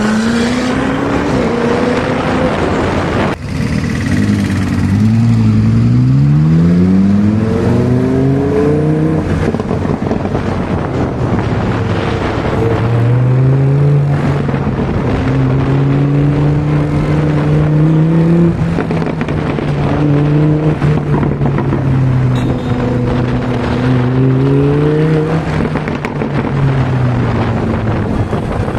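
Supercar engine revving and pulling hard. Its pitch climbs steeply a few seconds in, then holds and rises and falls several more times as it changes gear.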